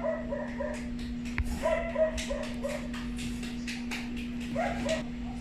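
A dog barking in three quick runs of short, high yapping barks, several a second. A steady low hum lies underneath.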